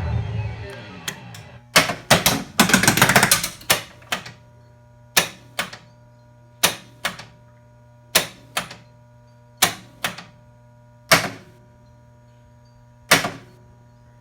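Data East Jurassic Park pinball machine: its stuck music sound cuts off in the first second, then the machine's mechanisms clack, first in a quick cluster and then in pairs about every second and a half, over a steady electrical hum.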